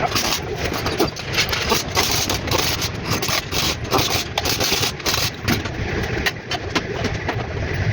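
Overhauled Mitsubishi 3A92 engine running at idle, a steady low hum with rapid ticking over it.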